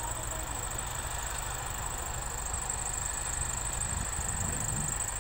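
Distant diesel engines of a Swaraj 855 tractor and a JCB running under load, a low steady rumble with a brief rise in pitch near the end. A steady high-pitched hiss runs over it.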